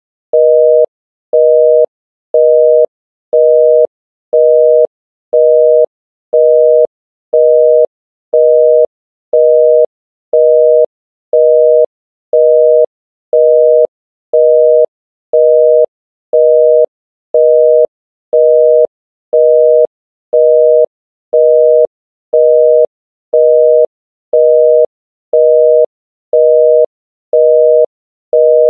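North American telephone busy signal: two steady tones, 480 and 620 Hz sounded together, beeping on and off in even half-second pulses, about one beep a second. It tells the caller that the line called is busy.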